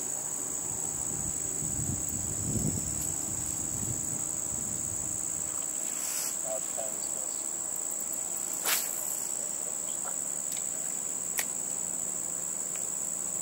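Steady high-pitched chorus of insects on a summer evening shore. Two short noisy swishes stand out about 6 and 9 seconds in, with a faint click near the end.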